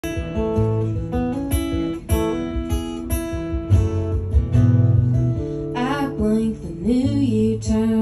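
Acoustic guitar played live as a song's intro, chords strummed and picked in a steady rhythm.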